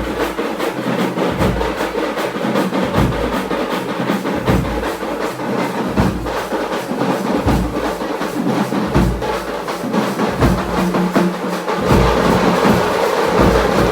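Loud music driven by heavy drumming, with closely repeated drum strokes over a dense, busy wash of sound.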